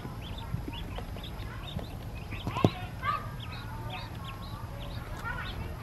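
A brood of ducklings peeping constantly, many short high peeps overlapping one another. About two and a half seconds in there is one sharp, louder knock.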